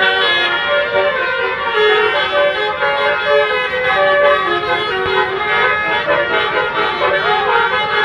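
Tour bus's basuri (telolet) musical air horn playing a tune, several horn tones sounding together as the notes step up and down.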